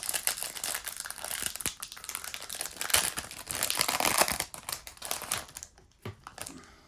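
Magic: The Gathering booster pack's foil wrapper being torn open and crinkled in the hands, a dense crackling that dies away about two thirds of the way through.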